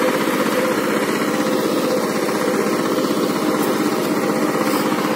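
Power tiller's single-cylinder diesel engine running steadily under load as it puddles a flooded paddy field, with a fast, even beat.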